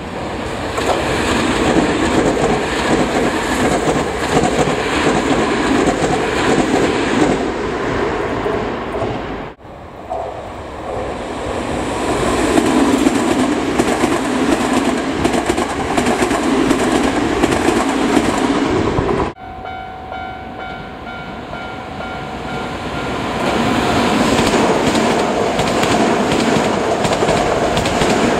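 Toei 5300-series electric trains passing close by, wheels running on the rails, in three separately cut passes. During the third pass steady whining tones are heard before the rolling noise swells again.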